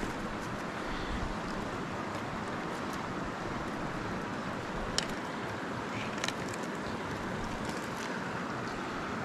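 Steady rush of flowing river water, with a couple of faint clicks a little past the middle.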